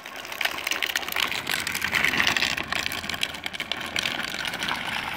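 Hard plastic rear wheels of a drift trike grinding and sliding over rough asphalt as it turns, a steady gritty scrape full of small ticks.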